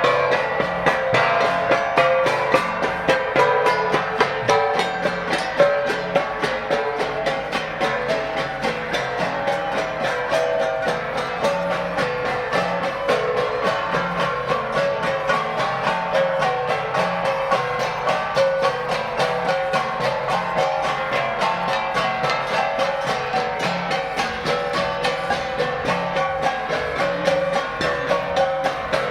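Cordillera gong ensemble: flat gongs (gangsa) beaten in a quick, steady interlocking rhythm with a drum, the metal tones ringing over each other.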